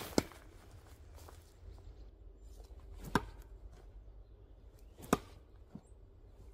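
Three sharp thuds of thrown construction nails striking and sticking into a wooden log-round target, a few seconds apart.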